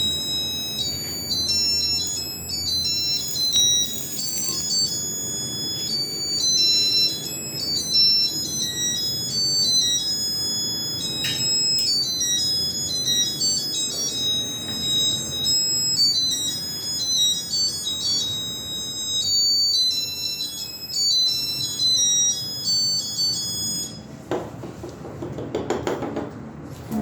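Music: a busy, high, chime-like melody of short notes. It stops near the end, giving way to a few knocks and clatter.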